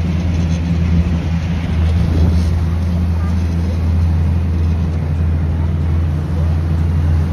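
Motorboat engine running with a steady low drone.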